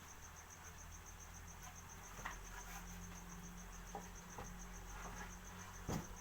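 A cricket chirping in a fast, even pulse of high notes, fairly faint, with a few light knocks and a sharper click near the end.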